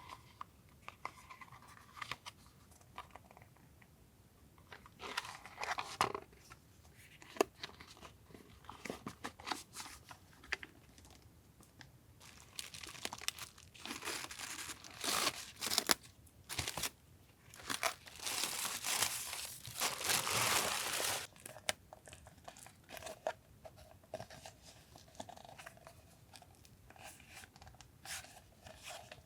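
Product packaging being handled and opened by hand: wrapping crinkling, crumpling and tearing, with scattered light taps and clicks. The rustling grows busier and louder in the second half, peaking in a long stretch of tearing and crumpling.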